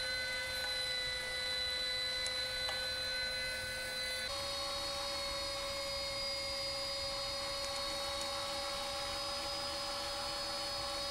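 Electric meat grinder running steadily with a high motor whine as it grinds raw meat. The whine steps slightly higher in pitch about four seconds in.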